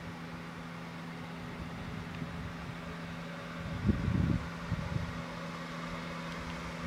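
Car engine idling with a steady hum. A brief low rumble comes about four seconds in.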